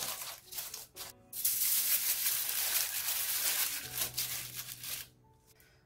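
Parchment paper rustling and crinkling as hands press it flat into a steel cake ring lined with aluminium foil, starting about a second in and stopping shortly before the end.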